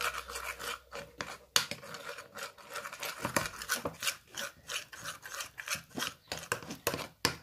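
Glue-and-detergent slime being stirred and scraped around a bowl with a utensil, a quick irregular run of short scrapes several times a second, as the mixture starts to set into slime.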